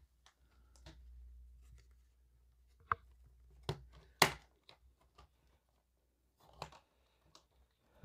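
Hard plastic parts of a toy playset clicking and knocking as they are handled and pressed into place: a handful of scattered sharp clicks, the loudest about four seconds in.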